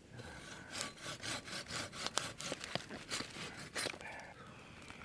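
Hand saw cutting through wood, a steady back-and-forth of about three strokes a second that stops about four seconds in.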